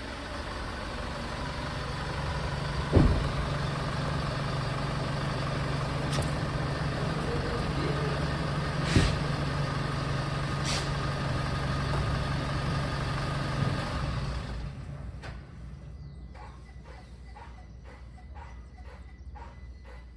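A 2025 Chevrolet S10 pickup runs steadily with a low hum, with two knocks along the way, and shuts off about 15 seconds in. Then comes a regular series of short yelping squeaks, about two a second: the after-shutdown noise that the owner likens to a dog and guesses is a solenoid or something that keeps working after the engine stops.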